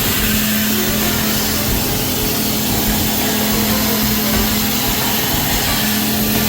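Dry-ice blaster spraying high-pressure dry-ice pellets: a loud, steady hiss of air and pellets, with a steady low hum beneath it.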